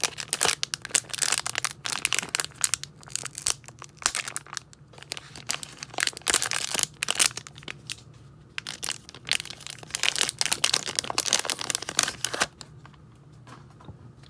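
Plastic wrapper of a baseball card pack crinkling and tearing open, a long run of crackling that stops near the end.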